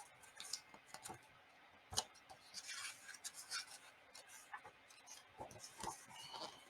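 Faint rustling and light taps of a picture book's paper pages being handled and turned, with a sharper tap about two seconds in.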